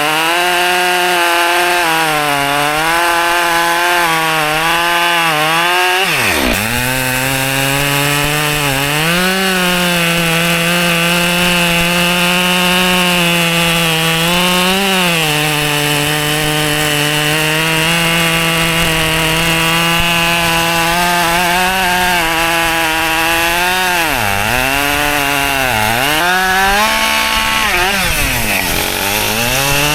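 Husqvarna chainsaw running at high throttle while cutting white oak logs; the engine pitch sags repeatedly as the chain bites and then recovers. About six seconds in it drops sharply and climbs back, and it dips several more times near the end.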